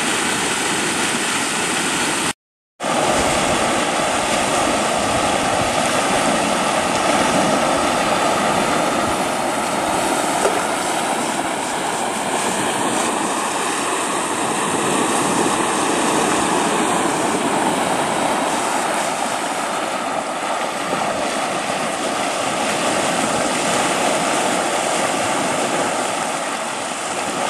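Muddy flash-flood water rushing through a canyon river channel, a loud, steady, unbroken rush of turbulent water. It cuts out for about half a second near the start.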